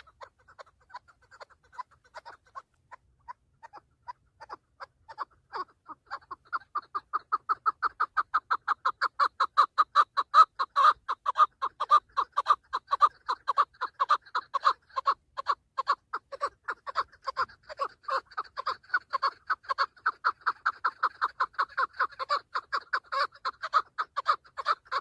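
Chukar partridge calling: a long, rapid run of clucking notes, about four a second, faint at first and growing louder after about six seconds, then holding steady.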